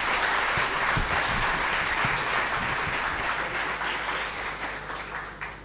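Audience applauding, a dense steady clapping that tapers off and stops near the end.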